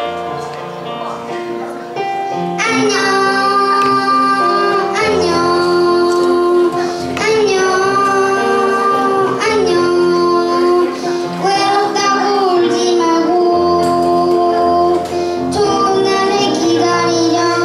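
A song with a child's voice and a woman's voice singing a slow melody over instrumental accompaniment; the singing comes in about two seconds in, after a short instrumental lead-in.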